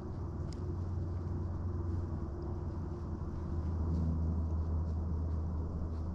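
Low, steady drone of a distant engine, its pitch shifting slightly about halfway through.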